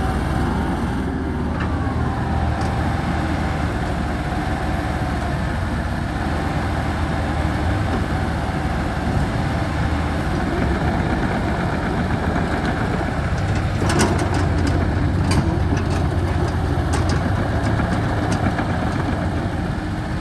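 A 2006 Komatsu PC78 excavator's diesel engine running steadily, with a scatter of sharp clicks and knocks in the second half.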